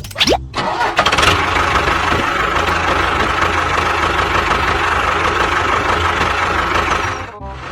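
A motor running steadily and loudly, cutting to a quieter run of the same kind near the end.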